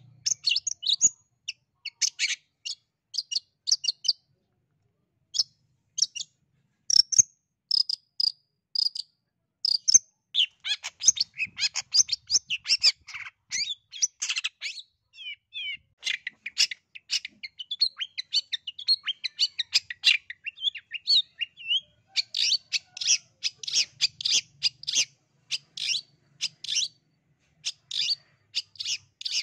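Long-tailed shrike (cendet) singing without a break: a rapid run of short, high chirps and chattering notes. There is a brief pause about five seconds in, and from about ten seconds in the chatter is dense and continuous.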